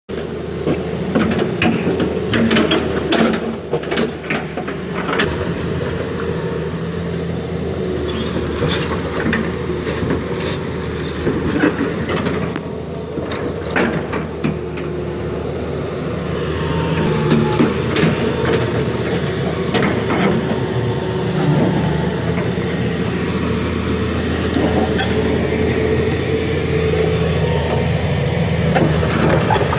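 Hitachi EX200 excavator's diesel engine running under hydraulic load, with repeated metallic clanks and knocks from the steel track. The track has been thrown off the undercarriage and is being worked back on.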